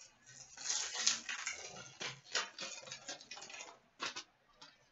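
Foil wrapper of a hockey card pack crinkling and tearing as it is opened by hand. A steady run of crackly rustling, with a few sharp ticks near the end as the cards are slid out.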